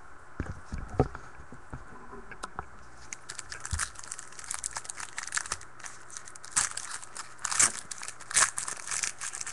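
A couple of knocks about a second in, then a foil trading-card pack wrapper being torn open and crinkled by hand, with irregular crackling that grows busier in the second half.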